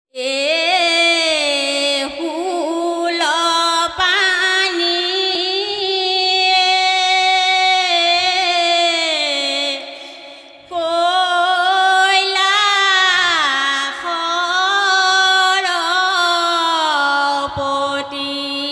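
Women singing an Assamese devotional song to Shiva, long held notes with sliding, ornamented pitch. The singing breaks off briefly about ten seconds in and then starts again.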